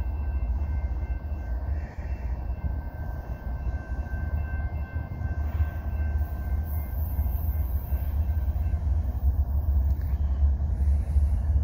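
Approaching CSX diesel freight train, a steady low rumble that grows slightly louder as it nears.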